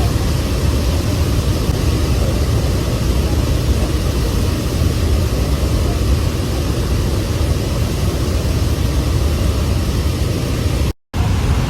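Steady, loud roar of water falling at Athirappilly waterfall, deep and even with no distinct events. It cuts out for a moment near the end and comes straight back.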